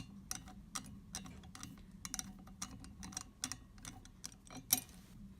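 Light, irregular clicking of a metal wing corkscrew being spun by hand on a wine bottle, about three clicks a second, with one louder click near the end.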